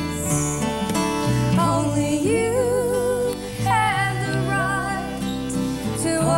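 A live acoustic song: a woman singing a slow melody with held, wavering notes over acoustic guitar accompaniment.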